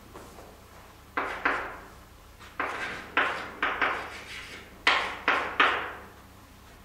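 Chalk tapping and scraping on a blackboard as a formula is written: a series of short, sharp strokes in three quick clusters.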